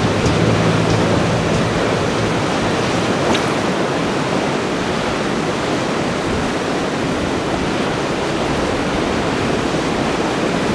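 Rough sea surf and wind: a steady rushing noise.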